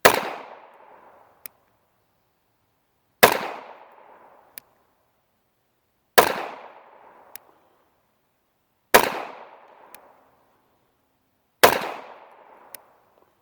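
Taurus 9mm pistol firing five single shots of remanufactured 9mm ammunition, slow and evenly spaced about three seconds apart. Each shot trails off in an echo, with a faint tick about a second and a half after it.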